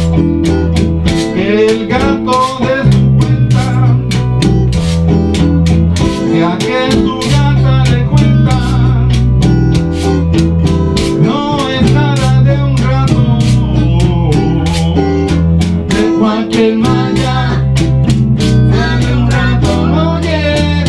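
Live band music with no words: an electric guitar plays lead lines over an electric bass line and a steady beat.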